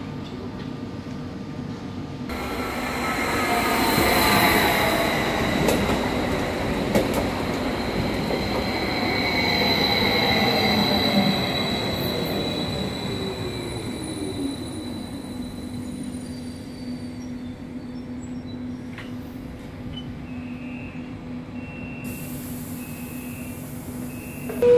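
An SBB regional electric train pulling into the platform: its drive whine and wheel squeal glide down in pitch as it brakes, then settle into a steady hum as it stands. Near the end, a row of short, evenly spaced beeps, about one a second.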